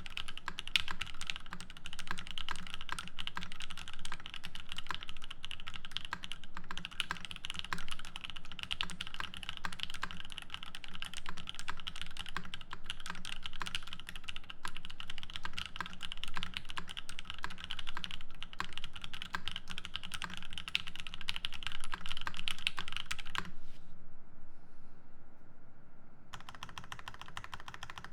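Fast continuous typing on a Matrix Noah mechanical keyboard with lubed Seal switches on an aluminium plate and GMK ASCII keycaps: a dense stream of keystrokes with a short break near the end.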